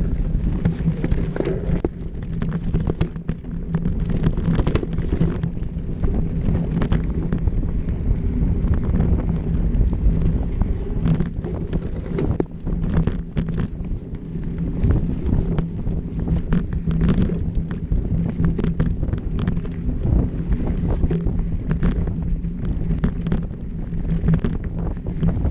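Mountain bike ridden fast down a dirt forest trail: wind rushing over the bike-mounted camera's microphone and tyres on dirt, with frequent short knocks and rattles from the bike over bumps.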